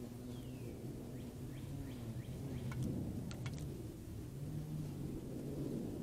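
A steady low motor drone, like a distant engine, runs under the scene. Faint, short, falling bird chirps come in the first two seconds, and a few sharp clicks about halfway through.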